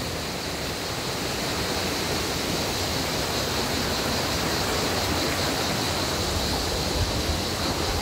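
Mountain stream rushing over small waterfalls: a steady, even noise of falling water.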